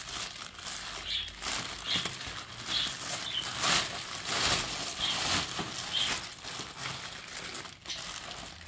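Plastic packaging rustling and crinkling as a carpet and upholstery washing machine and its parts are handled out of the box, with short high chirps repeating about once a second.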